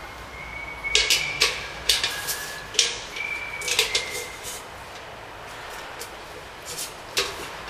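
A handle being fitted to a painted beer bucket: a series of sharp metallic clanks and clicks, about six spread irregularly, some followed by a short ringing tone.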